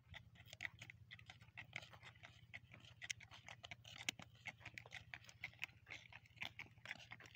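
Footsteps and donkey hooves on a road: faint, irregular scuffs and clicks, several a second, over a low steady hum.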